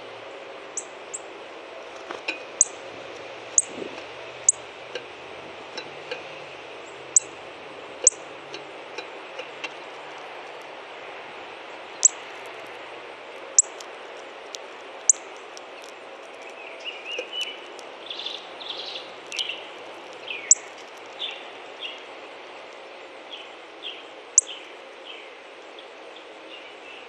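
Northern cardinal giving sharp, high chip calls, about a dozen in all, each a quick downward slide, spaced irregularly a second to several seconds apart. In the second half, a run of softer, lower chirps joins in over a steady background hiss.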